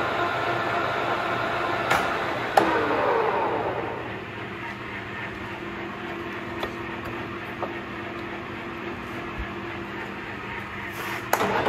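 Colchester Mastiff 1400 gear-head lathe headstock running at speed with a steady gear whine. About two seconds in, a click and a clunk, and the whine falls away as the spindle coasts down, leaving a lower steady hum. A few light clicks follow as the speed-selector lever is worked, then another clunk near the end.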